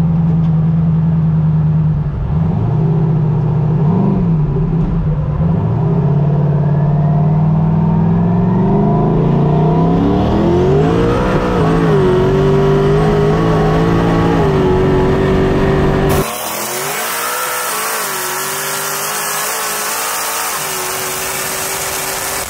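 Turbocharged LS V8 in a BMW E92 race car, heard from inside the stripped cabin: running at low revs with a few short blips, then the engine note climbs and holds steady at higher revs. About sixteen seconds in the sound changes suddenly, the deep rumble dropping away and a loud hiss coming up while the engine runs on at the same note.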